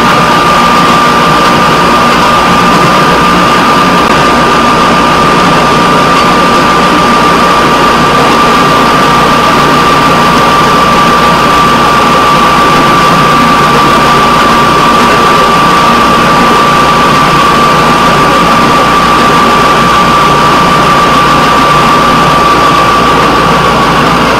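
Steady running noise of a fire patrol rail vehicle rolling along the track: engine and rolling noise with a constant high whine over it.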